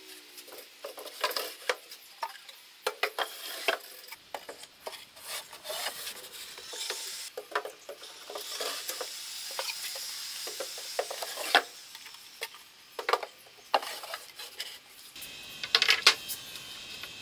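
Wooden drawers sliding in and out of a steel-framed cabinet: wood rubbing on wood, with scattered knocks and clacks. A cluster of louder knocks comes near the end.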